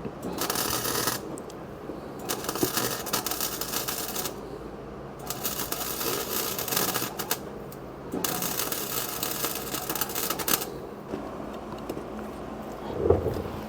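Wire-feed welder arc crackling in four short runs of stitch welding along floor-pan seams, with brief pauses between runs. A thump near the end.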